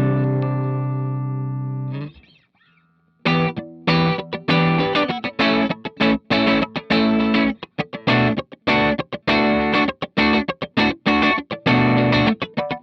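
Electric guitar played through a Cort x Moollon CMV15 amp. A held chord rings out and is cut off about two seconds in. After a short silence, a rhythmic riff of short, choppy chord stabs follows.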